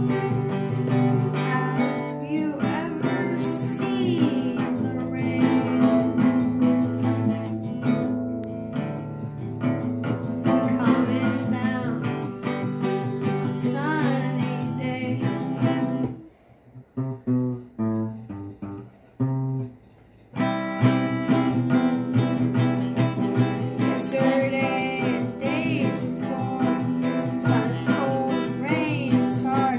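Fender acoustic guitar strummed in chords while a boy sings along. About halfway through, the strumming and singing drop away for about four seconds, leaving a few soft single notes, then the full strumming and singing come back in.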